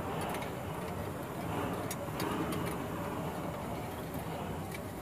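Metal tongs clicking and scraping against a saucepan as sliced squid is stir-fried in sauce, a handful of sharp taps scattered through. Under them runs a steady rumble and hiss.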